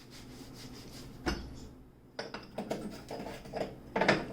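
Metal stove burner parts being wiped with a rag and set back in place: soft rubbing, one knock about a second in, then several light knocks and clinks of metal in the second half.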